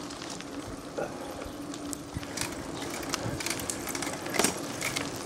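Mountain bikes rolling along a gravel track: tyre noise on the loose surface with scattered clicks and rattles from the bikes, a faint steady hum underneath, and a louder knock about four and a half seconds in.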